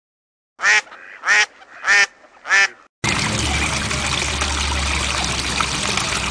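A duck quacks four times, about two-thirds of a second apart. About three seconds in, the steady rushing noise of a flooded river takes over, with a low rumble under it.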